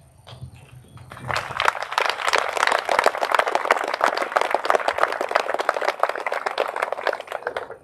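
Audience applauding. The clapping starts about a second in and stops just before the end.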